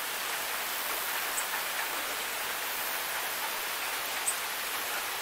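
Steady rain falling on grass and trees: an even hiss with a few sharp drop ticks, one about a second and a half in and another just past four seconds.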